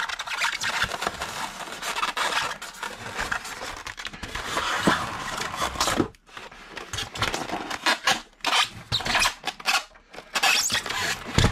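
Die-cast model tractor-trailer being pressed and slid into a styrofoam packing tray: foam rubbing and scraping, with many small clicks and knocks of the model against the tray and a sharp knock near the end.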